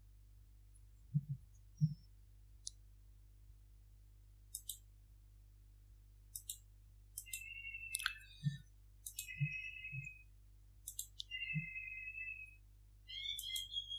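Faint, scattered clicks of a computer mouse and keyboard keys, a few at a time spread across the span. From about halfway, a faint high-pitched tone comes and goes.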